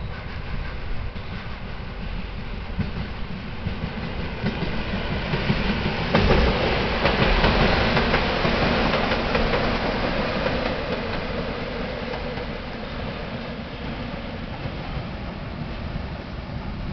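EN57 electric multiple unit rolling into a station: wheels and carriages rumbling and clattering on the track, growing louder as it draws level about six seconds in, then fading as it moves on along the platform.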